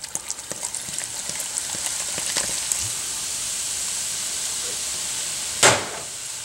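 Guinness stout pouring from a bottle into a pot of hot stew, fizzing and crackling as it foams on the surface, with many small ticks at first and then a steady hiss. A single knock near the end as the bottle is set down on the stovetop.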